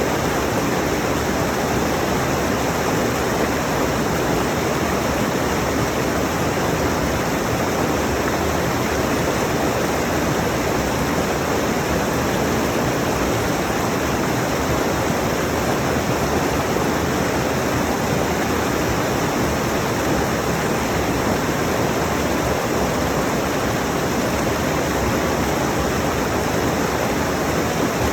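Rushing mountain stream: fast water running over rocks in a steady, unbroken rush.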